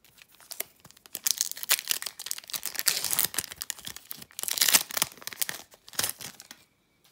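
A 2013 Fleer Retro trading-card pack's foil wrapper being torn open and crinkled by hand: a dense run of sharp crackling and ripping, loudest about two-thirds of the way through, stopping shortly before the end.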